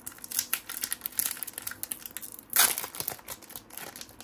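Foil wrapper of a 1994-95 Topps Finest basketball card pack crinkling and tearing as it is pulled open by hand, with a louder burst about two and a half seconds in.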